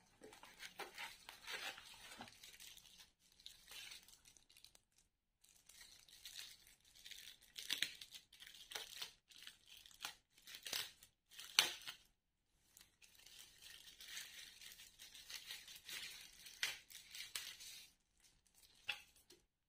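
Thin plastic wrapping bag crinkling and rustling as a multimeter is pulled out of it and unwrapped by hand, in irregular bursts with short pauses and the sharpest crackles a little past halfway.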